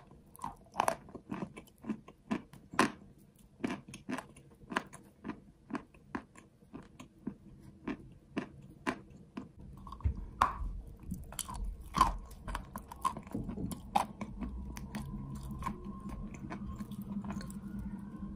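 A person biting and chewing chalk coated in wet clay paste, with a run of sharp, crisp crunches. The crunches come about twice a second at first and get denser about halfway through, with a low rumble underneath.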